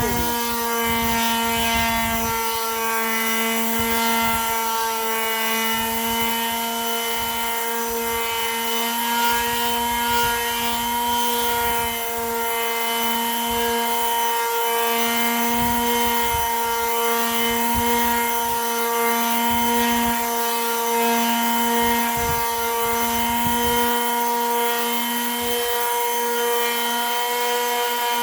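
Electric hand sander with a dust bag running steadily, its motor humming at an even pitch while the pad rubs over a wooden board.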